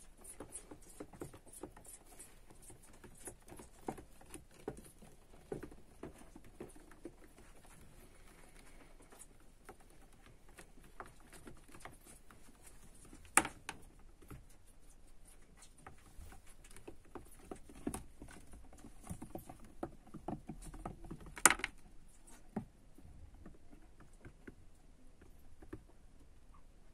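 A hamster's claws scratching and pattering on the floor of a plastic storage box, a steady scatter of small clicks and scrapes. Two sharper knocks stand out, one about halfway through and one some eight seconds later.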